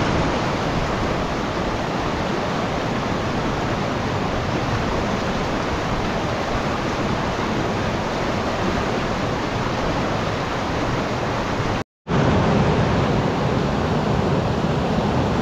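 Rapids of a fast mountain river rushing over boulders: a steady roar of white water. It cuts out for a split second about twelve seconds in, then resumes.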